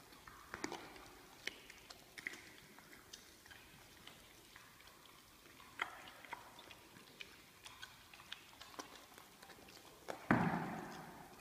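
Big-cat cubs feeding: scattered soft chewing and mouthing clicks, with one louder, harsh sound about ten seconds in that fades away over about a second.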